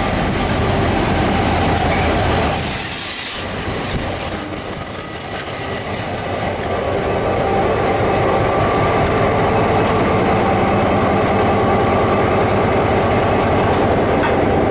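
DFB class diesel-electric locomotive drawing in alongside a platform, its diesel engine running loudly and steadily. A short burst of hissing comes about three seconds in.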